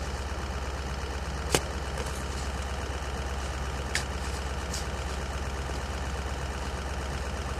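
Vehicle engine idling steadily with a low hum. Two sharp clicks come about a second and a half and about four seconds in.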